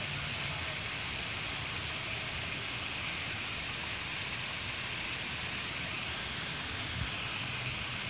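Small waterfall splashing down a rock face: a steady hiss of falling water.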